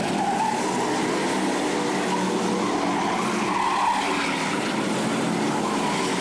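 A pack of figure-8 stock cars racing at full throttle, several engines running at once with overlapping pitches, with tyre squeal as they skid through the turns.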